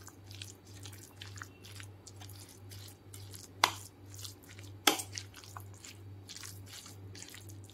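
A metal spoon stirring and folding a thick, wet paste of ground mutton and chana dal with chopped onion and coriander in a bowl. It makes soft squelching and scraping sounds, with two sharp clinks of the spoon against the bowl about three and a half and five seconds in.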